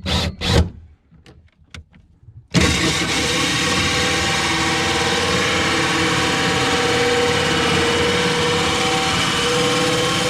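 Power drill boring a hole through a boat's ballast-locker wall. It starts suddenly a couple of seconds in and runs steadily and loudly for about eight seconds, after a few light clicks.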